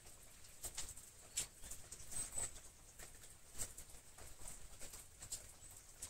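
Flower stems and leafy foliage rustling and crackling as alstroemeria stems are pushed into a dense arrangement, with irregular soft clicks and taps.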